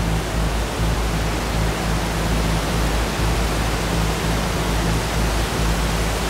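Loud, steady rush of a waterfall in flash flood, with low sustained music notes underneath.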